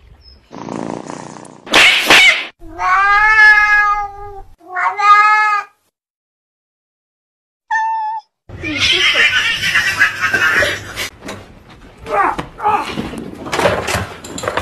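Domestic cats yowling: two long, drawn-out yowls a few seconds in, then after a brief dead silence, noisy hissy sound and shorter cries.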